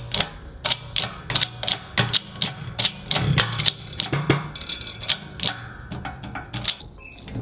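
Background music with a steady percussive beat of about three clicks a second over a low bass line.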